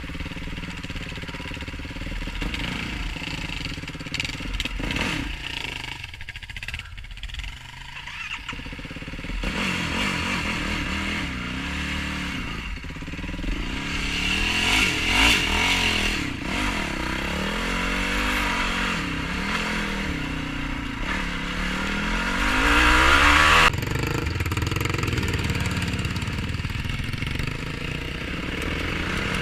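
Yamaha YFZ450R quad's single-cylinder four-stroke engine being ridden, its revs rising and falling over and over as the throttle is worked. It is quieter for a couple of seconds early on, then revs repeatedly and is loudest briefly just before the end, where it drops off suddenly.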